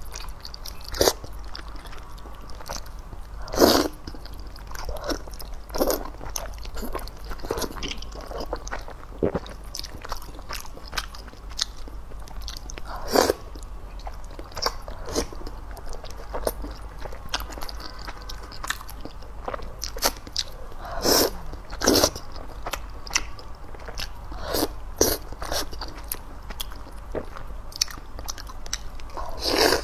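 Slurping and chewing of soft oat-flour noodle rolls (youmian kaolaolao) from a chili-oil broth, as wet sucking, smacking and mouth noises, with a louder slurp every few seconds.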